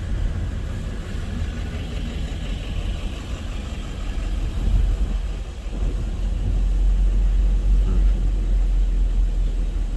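Deep, steady rumble inside a car cabin, from the moving car and hurricane-force wind buffeting it. It swells louder about two-thirds of the way through, then eases slightly.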